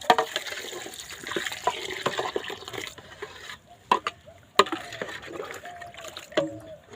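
Water pouring and sloshing, with two sharp knocks about four and four and a half seconds in.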